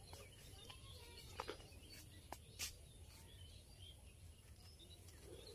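Near silence: faint outdoor ambience with a few soft clicks about one and a half to two and a half seconds in.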